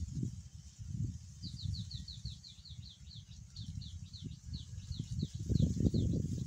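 Wind rumbling and buffeting on the microphone, growing stronger near the end. Over it, a bird gives a rapid run of short, high, falling chirps, about four a second, from about a second and a half in until shortly before the end.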